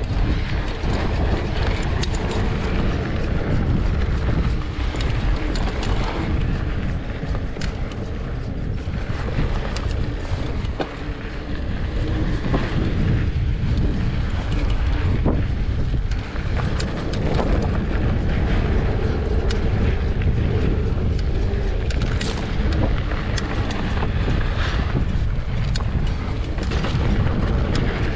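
Riding noise from a Trek Slash 7 full-suspension mountain bike rolling down a dirt trail: a steady low rumble of wind and tyre noise on the camera microphone, with frequent clicks and rattles as the bike goes over bumps.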